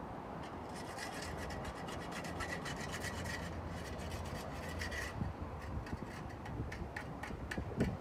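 Rhythmic rasping strokes, close together for the first few seconds, then slower at about three to four a second.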